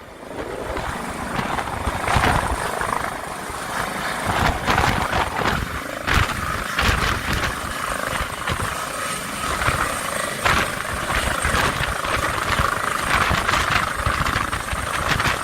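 Air-ambulance helicopter's rotor and turbine running, a continuous heavy noise that swells and eases.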